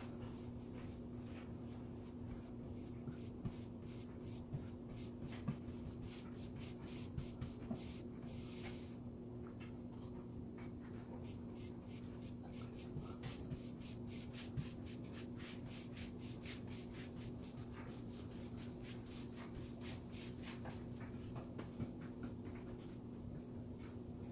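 A wide paintbrush brushing paint onto a wooden tabletop: a steady run of short swishing strokes, about three a second, with a low steady hum underneath.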